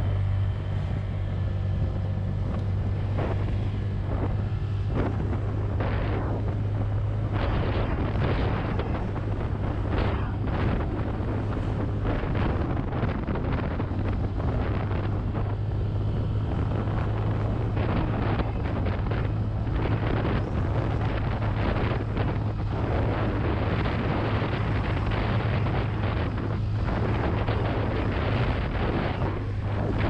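Honda Click 125i scooter's single-cylinder engine running steadily while being ridden, a constant low hum, with wind rushing and buffeting over the camera microphone in uneven gusts.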